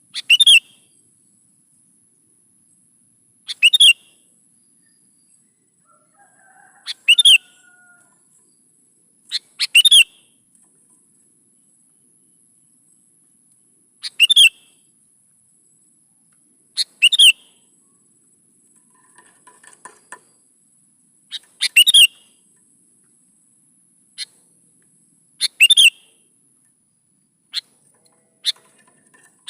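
Sooty-headed bulbul (kutilang) singing: short, loud whistled phrases repeated every three to four seconds.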